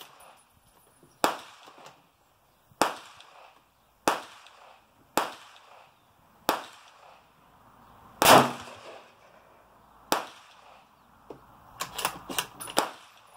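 Gunshots on a shooting range: sharp cracks one to two seconds apart, each with a short ringing tail. The loudest comes about eight seconds in, and a quick run of several shots comes near the end.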